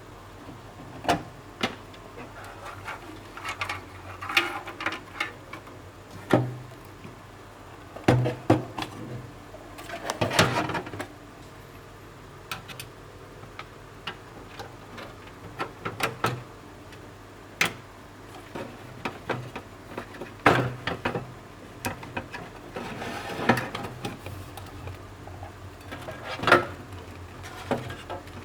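Irregular clicks, taps and knocks of hands working on a desktop computer's metal case and power supply cables, over a faint steady hum.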